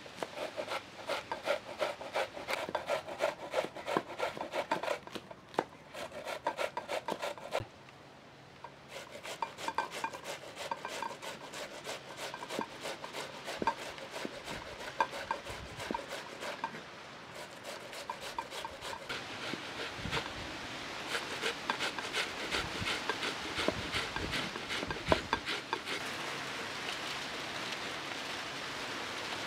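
Kitchen knife chopping green chili peppers and tomatoes on a wooden cutting board, quick repeated strokes with a short pause. Near the end the chopping gives way to a steady hiss.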